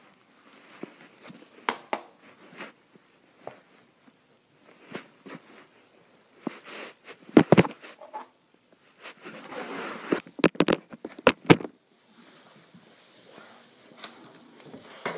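Scattered clicks and knocks of a plastic highlighter being flipped and handled, with a few sharp clacks in the middle and rustling and bumping of the handheld recording device.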